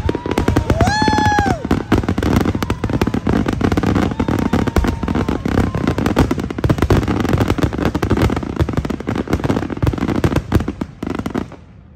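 Rapid barrage of aerial fireworks: dozens of bangs and crackles in quick succession, cutting off abruptly near the end.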